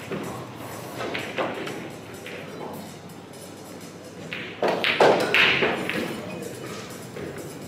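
Pool hall ambience: scattered knocks and clicks with distant voices in a large hall, and a louder burst of noise about five seconds in.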